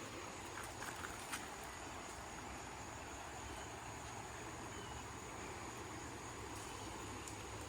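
Faint outdoor ambience: a steady high-pitched insect drone over a low rumble, with a few light clicks in the first second and a half.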